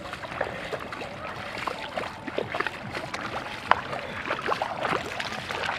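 Feet wading through shallow muddy water, with irregular splashes and sloshes.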